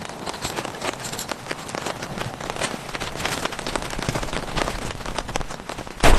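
Heavy rain falling, many drops striking a surface in a dense, steady hiss of tiny clicks. A sudden louder rush of noise with a low rumble comes in just before the end.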